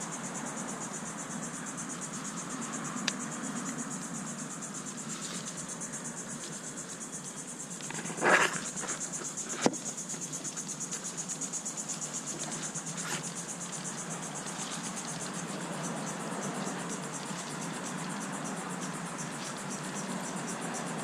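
Insects trilling steadily in a high, fast-pulsing chorus. About 8 seconds in there is a brief rustle, and a sharp click comes just after, from hands working at the tree.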